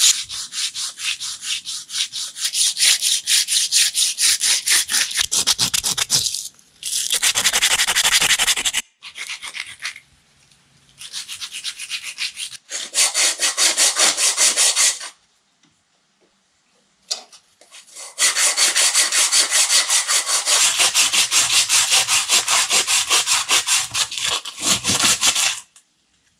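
Hand sanding a small wooden block with coarse sandpaper: quick back-and-forth scratching strokes in several runs broken by short pauses, as the block is rough-shaped.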